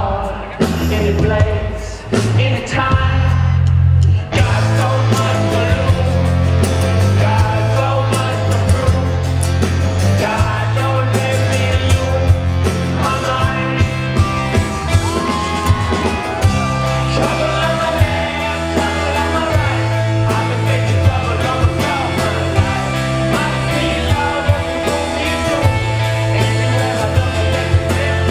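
Live rock band playing at concert volume over a PA, with a male lead vocal and a prominent bass guitar line. The first few seconds are sparser, then the full band with drums comes in about four seconds in.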